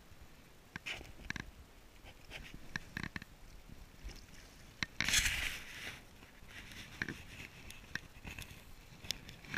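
Fabric of a fishing jacket rubbing and scraping against a chest-mounted camera, with scattered small clicks and one longer rustle about five seconds in.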